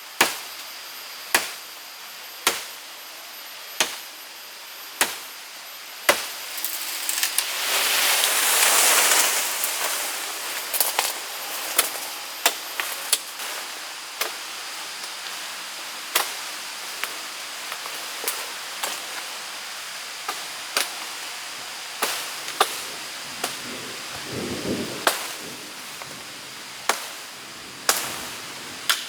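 Wood being chopped with a blade: evenly spaced sharp strikes a little over a second apart, then a loud rushing hiss for a few seconds, then more scattered knocks and taps.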